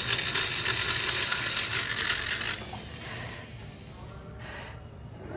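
Rasping of porting work on the RX-King cylinder's metal ports: a dense scraping full of fine clicks, fading out over the second half.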